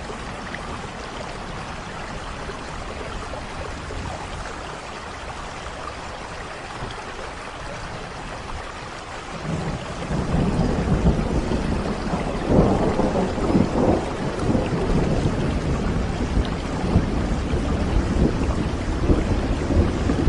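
Steady rain, with a long low rumble of thunder building about halfway through and rolling on to the end.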